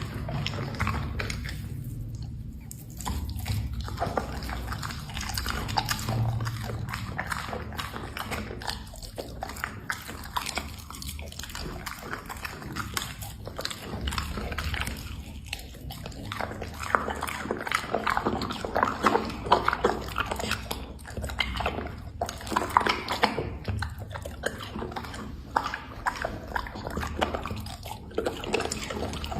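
A dog eating, chewing its food with a steady run of quick, irregular bites and clicks.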